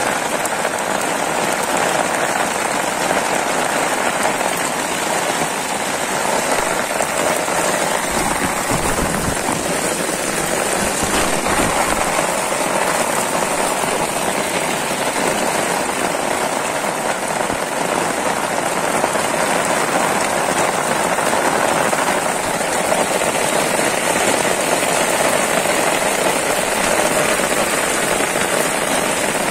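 Heavy rain pouring onto open floodwater: a steady, even hiss of countless drops splashing on the water surface.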